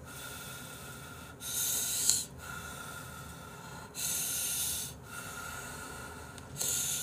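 A person blowing on a lifted bite of hot ramen noodles to cool it: three breaths of air, each about a second long.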